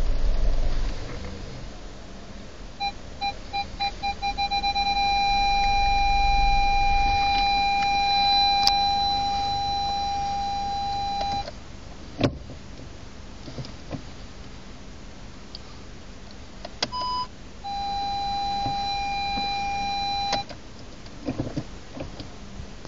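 Volkswagen Passat B6 park-distance-control warning beeping. Separate beeps start about three seconds in, come faster and faster, and merge into a continuous tone, the sign that an obstacle is very close. The tone cuts off near the middle, and after a click and a short two-note chime a second continuous tone sounds for about three seconds.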